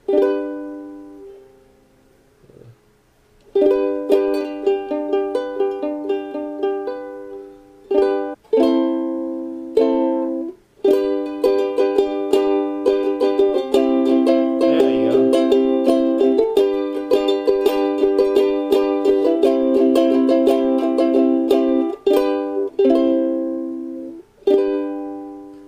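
Ukulele strummed: one chord rings out and fades, then after a short pause steady strumming of chords, several strokes a second, with the chord changing a few times and brief stops. The player is trying chord shapes while looking for the V chord (D) in the key of G.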